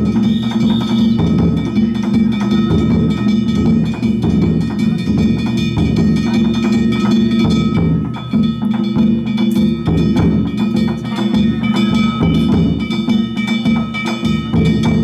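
Danjiri festival music: a large taiko drum and hand-held kane gongs beaten in a fast, steady rhythm, the gongs ringing throughout. The playing drops off briefly about halfway through.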